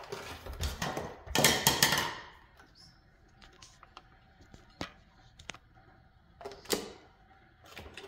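Hard kitchen items being handled: a burst of clattering and rustling about a second in, then a few separate clicks and knocks.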